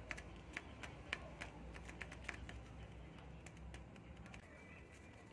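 A string of light clicks and taps, about six in the first two and a half seconds, from folded paper claws on the fingertips being flexed and knocked together, over a low steady hum.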